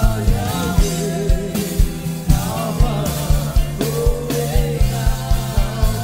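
Live gospel worship band: several singers on microphones sing over the band, with acoustic guitar, low sustained notes and a steady drum beat.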